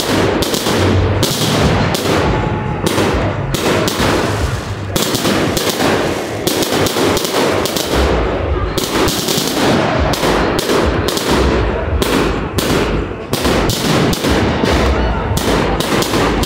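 Aerial fireworks going off in a dense barrage, several sharp bangs a second without a break.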